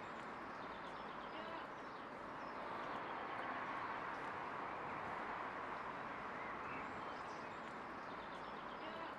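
Outdoor garden ambience: a steady background hiss with faint birds chirping now and then.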